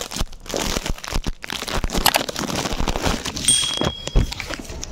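Plastic packaging wrapper crinkling and crackling as it is handled and torn open, with a brief high tone about three and a half seconds in.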